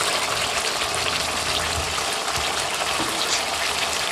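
Green curry paste frying in coconut cream in a nonstick wok, a steady bubbling sizzle with fine crackling throughout.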